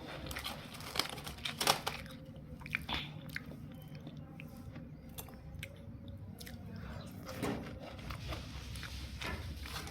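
A person biting into and chewing crisp biscuits, with a few sharp crunches, the loudest about a second and a half in, then softer chewing.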